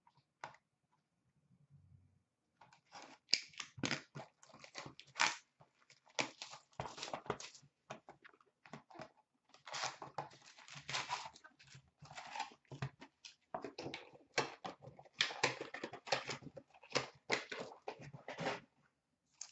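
A hockey card hobby box being opened and its foil card packs torn open: irregular crackling tears and crinkling rustles, starting about two and a half seconds in and going on in clusters until near the end.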